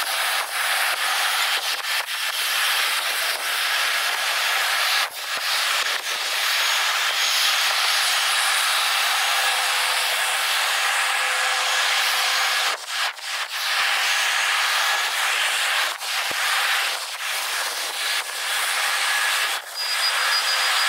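Airport aircraft noise sped up fourfold: a steady hissing rush with almost no low end, broken by a few brief dips.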